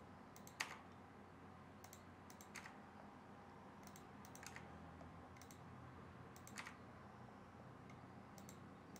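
Faint, scattered clicks of a computer mouse and keyboard, singly and in pairs every second or two, over near-silent room tone.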